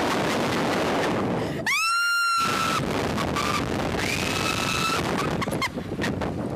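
Two women screaming on a slingshot reverse-bungee ride over loud rushing wind noise on the on-board microphone: one long high scream about two seconds in, and another shorter one about four seconds in.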